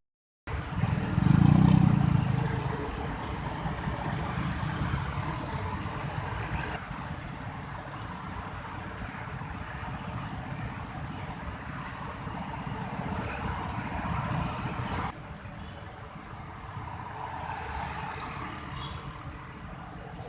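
Road traffic passing: steady vehicle noise, with one vehicle passing close and loud about a second in. The noise drops abruptly quieter about fifteen seconds in.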